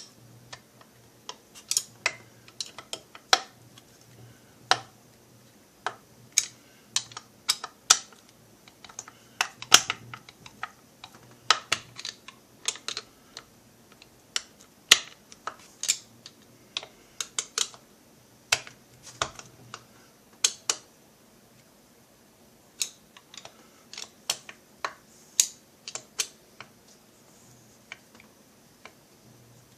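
Irregular sharp clicks and taps of metal tools and chainsaw crankcase parts being handled and worked on a workbench, with no steady rhythm.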